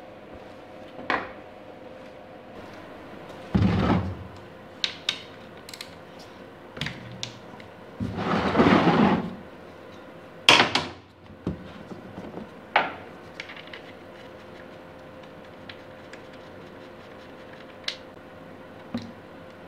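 Workshop handling sounds: scattered clunks and clicks of motorcycle parts and tools being handled and set down, with two longer rough noises about four and nine seconds in, over a faint steady hum.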